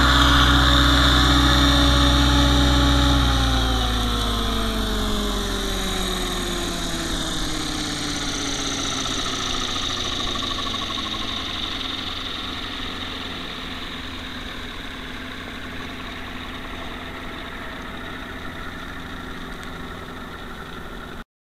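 Electric RC helicopter (T-Rex 600 ESP with a Kontronik Pyro 600 motor) sitting landed with its rotor turning: a steady motor and gear whine for the first few seconds, then the pitch falls steadily and the sound fades as the rotor spins down. The sound cuts off abruptly near the end.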